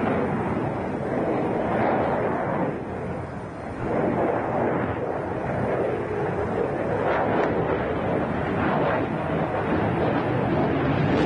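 F-35 fighter's single turbofan engine heard in flight during aerobatic manoeuvres: a loud, continuous rushing roar that dips for a moment about three seconds in, then swells again.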